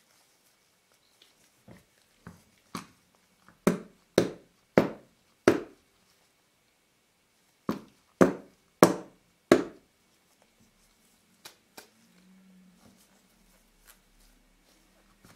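Metal lens barrel of a Nikkor 85mm lens knocked against a hard work surface to seat a lens element that is not fully in: two runs of sharp, evenly spaced knocks, about two a second, the first run growing louder, followed by a few light ticks.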